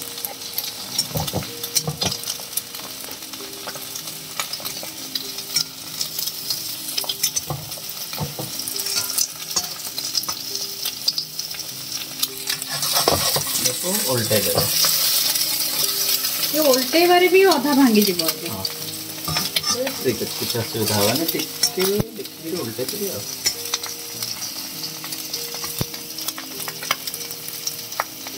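An egg frying in hot oil in a steel kadai, sizzling and crackling steadily. About halfway through, a metal spatula scrapes and squeaks against the pan as the egg is turned over.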